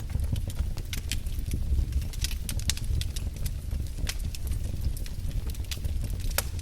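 Wood fire in a fireplace crackling: many small, sharp, irregular pops and snaps over a steady low rumble.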